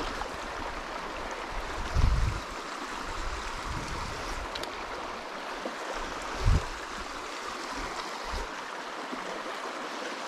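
Shallow river riffle running steadily over stones, a continuous rushing of water. Two dull low thumps break through, about two seconds in and again a little after halfway.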